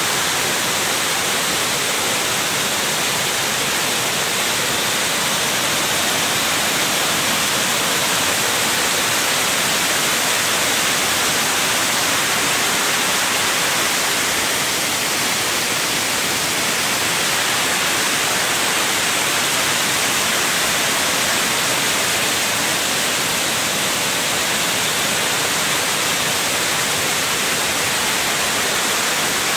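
Water from the full reservoir pouring over the stone spillway face of Derwent Dam in a broad cascade: a loud, steady rush of falling water.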